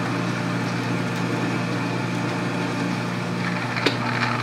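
South Bend metal lathe running under power on a threading pass, its motor and gearing humming steadily while a single-point tool cuts a square thread. About three and a half seconds in the hum shifts, a sharp click comes, and a little more high hiss follows.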